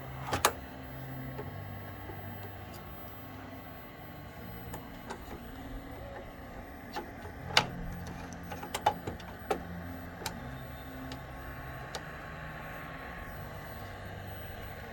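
Vintage color television set running with a steady low hum. A few sharp clicks and knocks come as its stuck vertical hold control is forced round by hand.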